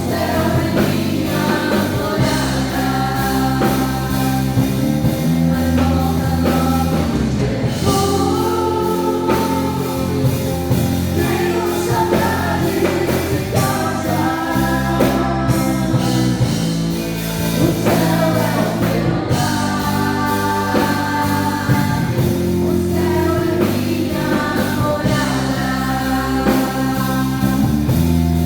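Live gospel worship song: singers with a band, sung melody over sustained chords.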